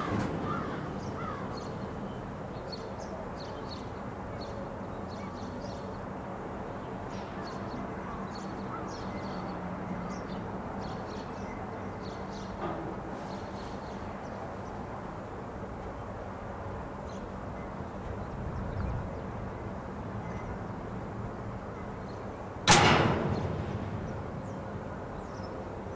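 A standing freight train: a low steady hum with faint chirps above it, then about 23 seconds in a single loud bang that dies away over about a second.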